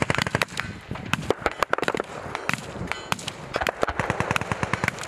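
Rapid, irregular gunfire from several weapons firing at once on a live-fire range, sharp shots overlapping at several a second.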